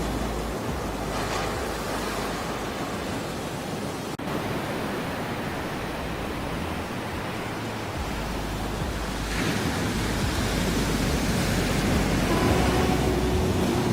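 Ocean waves washing in a steady rush of surf, swelling about a second in and again, louder, after about nine seconds.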